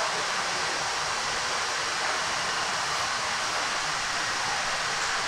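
Steady, even rushing noise with no breaks: the constant background of a commercial kitchen.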